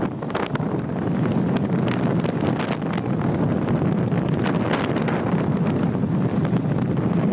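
Wind buffeting the microphone aboard a sailing yacht: a steady, heavy rumbling noise with scattered short crackles, slightly louder from about a second in.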